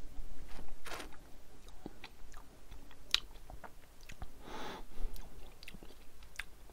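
Mouth sounds of someone tasting a sip of whisky: small wet clicks and lip smacks as the spirit is worked around the mouth, with a couple of soft breaths about a second in and again after four seconds.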